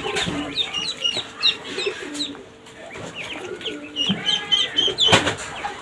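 Ducklings peeping: many short, high chirps, several a second, with a sharp knock near the end.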